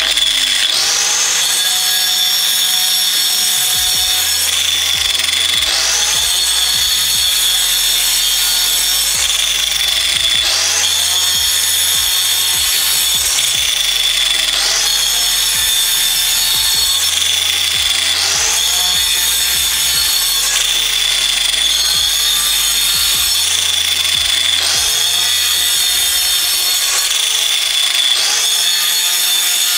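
Angle grinder running with its disc cutting into a block of ice, a steady high whine. Electronic music with a pulsing beat that repeats about every two seconds plays under it.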